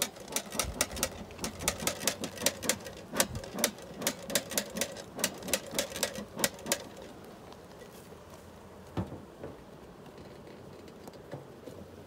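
A rapid, irregular run of sharp clicks and light wooden knocks, about three or four a second, from wooden hive frames being shifted and knocked against each other in an open beehive; it stops about seven seconds in, and one more knock follows a couple of seconds later.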